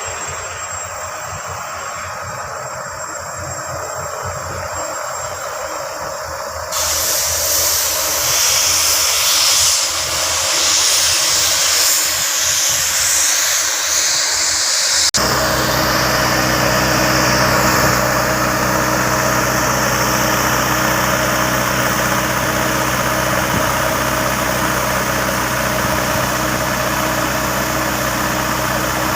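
Large Hitachi hydraulic mining excavator's diesel engine running steadily, with a hiss over it. The sound changes abruptly twice, the second time settling into a steady low engine note.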